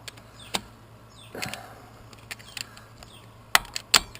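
Screwdriver prying a starter motor loose from an ATV engine case: a few sharp metallic clicks and knocks, the two loudest close together near the end.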